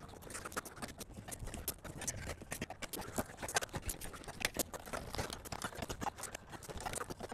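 Quiet, irregular clicks, taps and scrapes of hand work on wiring in an air-conditioner disconnect box, as wires are landed in the lugs and the terminal screws tightened with a screwdriver.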